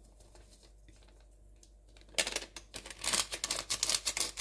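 Paper sachet of baking powder crinkling as it is shaken and emptied over a bowl of flour: a rapid run of crackles starting about halfway through.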